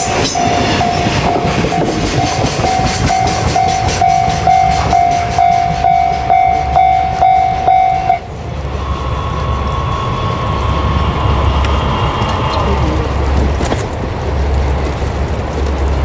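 Level-crossing warning bell ringing about twice a second as the last container wagons of a freight train clatter past. The bell stops abruptly about eight seconds in as the crossing clears, leaving a low rumble.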